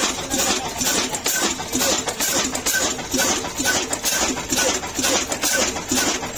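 Ruston Hornsby single-cylinder horizontal diesel engine running steadily, its exhaust beating in an even rhythm of about three beats a second.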